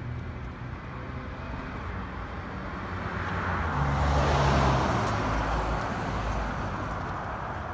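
Road traffic noise, swelling as a vehicle passes, loudest about four to five seconds in, then fading back to a steady hum.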